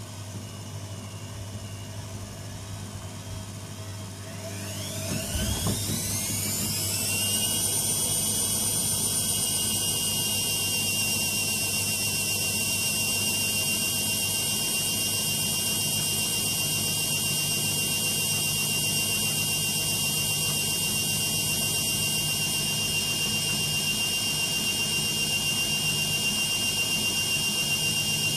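AEG Lavamat 6410 washing machine's motor speeding the drum up into a spin: a whine rises in pitch for about three seconds, about five seconds in, then holds steady and high.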